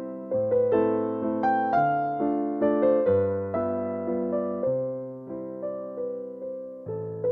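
Background piano music: a slow line of struck notes, about two a second, each fading away.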